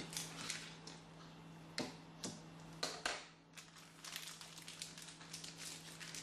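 Oven-baked paper liner rustling and crinkling as it is peeled bit by bit off a cooked meatloaf by hand, with a few sharper crackles about two and three seconds in.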